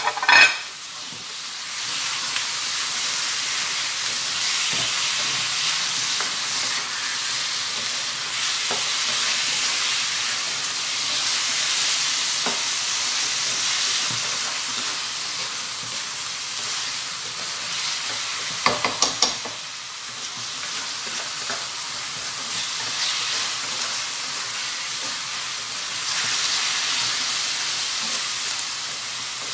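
Chicken livers with onions and garlic sizzling steadily in a hot nonstick wok as they are stirred with a spatula. The spatula knocks against the pan a couple of times at the start and in a quick cluster about two-thirds of the way through.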